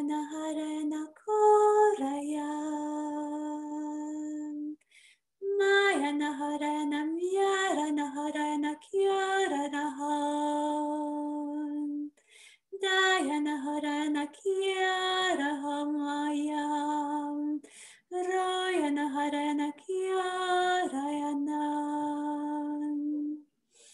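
A woman singing a slow, wordless chant on held vowel sounds, in about nine phrases with short breaths between; each phrase starts a step higher and settles down onto a long held low note.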